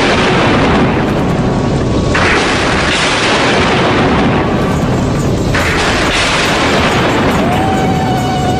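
Loud explosion-like booming effects played over loudspeakers, a rumbling roar that surges anew about two seconds in and again near the middle, with a held musical tone coming in near the end.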